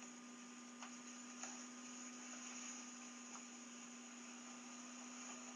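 Near silence: a steady low electrical hum and faint hiss, with a few faint ticks.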